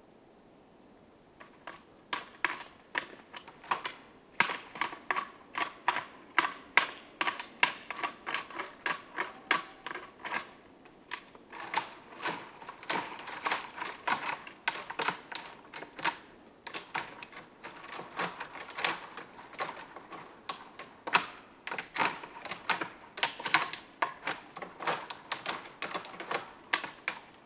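Bull elk raking its antlers through tree branches during the rut: a long run of rapid wooden clacking, about two to three knocks a second, starting a second or so in, with brief pauses.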